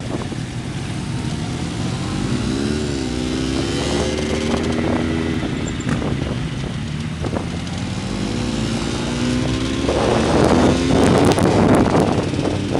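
Several motorcycles riding together, their engines running with the pitch rising and falling as riders blip the throttle. In the last few seconds the sound grows louder and rougher, with a rushing, crackling noise over the engines.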